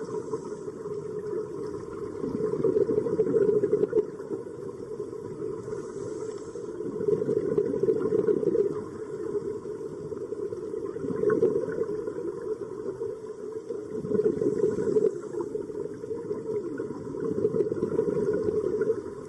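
Underwater ambient noise: a low, rumbling wash that swells and fades every few seconds.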